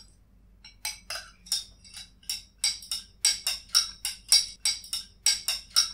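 Metal spoon stirring coloured water in a drinking glass, clinking rapidly against the glass about three to four times a second, each clink ringing briefly. The clinking starts about a second in.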